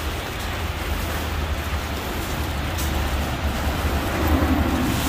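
Steady rain-like hiss of heavy wet snow falling and pattering, over a low steady rumble.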